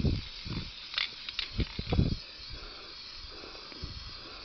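Aerosol spray-paint can hissing steadily as paint is sprayed to touch up a spot on a plastic RC truck body, with a few low thumps in the first two seconds.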